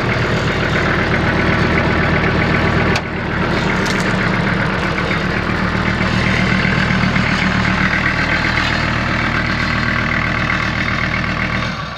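Kubota M5400 tractor's diesel engine running steadily at idle. There is a short click and a brief dip about three seconds in, and the sound falls away near the end.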